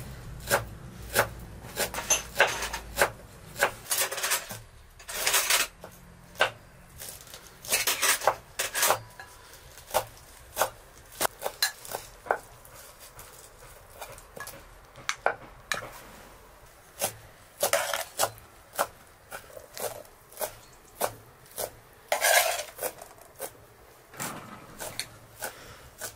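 Metal serving spoons knocking and scraping against a glass bowl and metal pots and trays while rice is dished out. There are many sharp clinks, with a few longer scrapes between them.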